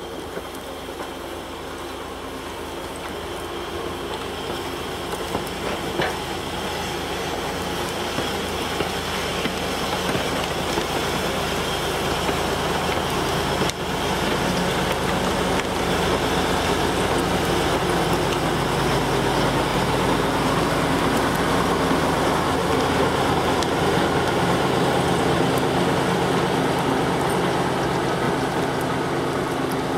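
TU6A narrow-gauge diesel locomotive running with a steady engine note as it hauls a work train of loaded flatcars, engine and rolling noise growing louder over the first half as it draws near, then holding steady.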